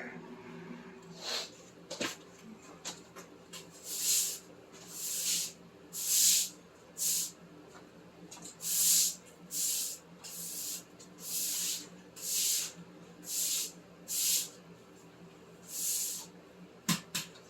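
Broom sweeping water and slush across the garage floor: about a dozen brisk swishes, roughly one a second.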